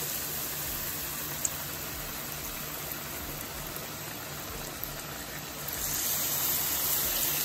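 Battered fish pieces frying in a pan of hot oil: a steady sizzling hiss that grows louder about six seconds in as another battered piece is lowered into the oil.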